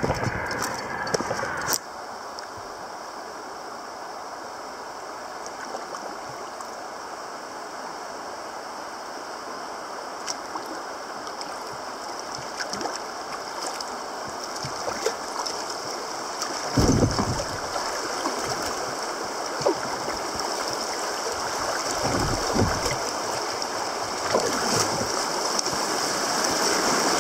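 Footsteps on pavement for the first two seconds, then a shallow river riffle rushing and gurgling around a kayak, growing louder toward the end as the boat runs over broken water. There are a few low thumps about two-thirds of the way in.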